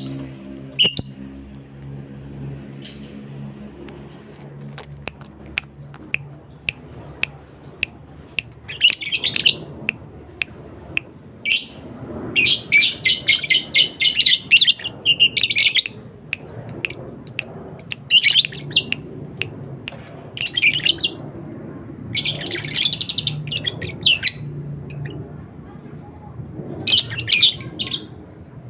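A songbird singing in bouts of rapid, high chirps and trills, the longest about a third of the way in and again near two thirds, with sharp single chip notes in between.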